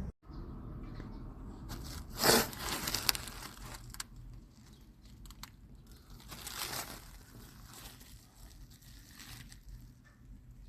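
Plastic crinkling and rustling as something is handled, in two louder bursts with a few sharp clicks, about two seconds in and again near the middle.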